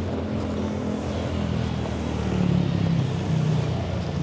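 City street traffic: a motor vehicle's engine grows louder and passes about halfway through, over a steady hiss of rain and wet road.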